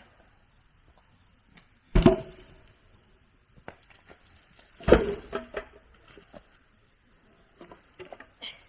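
Two heavy blows of a tool striking wood, about three seconds apart, each with a short ringing tail, with lighter knocks and taps between and after them.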